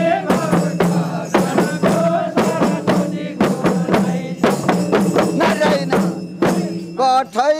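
Khaijadi, the Nepali jingled frame drum, struck in a brisk, even rhythm by a group, its jingles rattling over a steady held note. A man's voice begins singing near the end.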